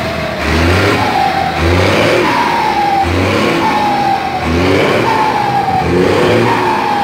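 Turbo-diesel bus engine revved in short blips about five times, each blip followed by a falling whistle from the turbo as the revs drop. This is the 'singing' of a turbocharger fitted with a pente, a slotted insert made to make it whistle.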